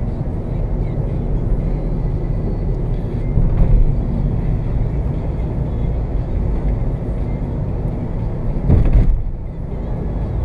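Steady road and engine noise inside a Chevrolet car's cabin while driving. A brief louder rushing swell comes about nine seconds in.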